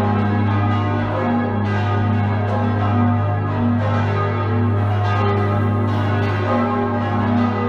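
Full peal of the six bells of St. Nikolaus, tuned G♯ B D♯ F♯ G♯ E and cast between 1781 and 1972, the largest a 1781 Rageth bell: overlapping, irregularly timed strikes ring over a steady deep hum from the great bell.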